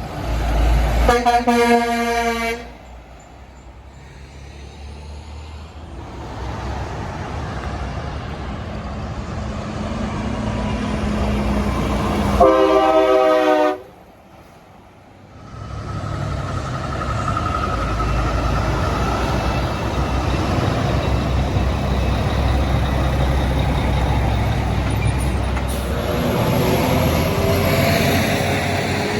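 Semi trucks passing on a highway and sounding truck-mounted train horns: a chord blast of about a second and a half about a second in, and a second blast about twelve seconds in that cuts off suddenly. Between and after the blasts, the steady rush of passing truck engines and tyres.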